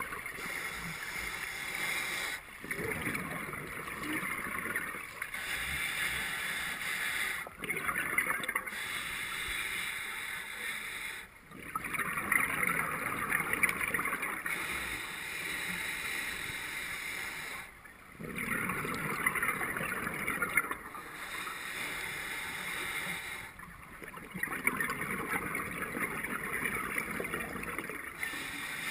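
Scuba diver's regulator breathing heard underwater through a camera housing: a long bubbling exhale every five or six seconds, about five in all, with quieter inhales between.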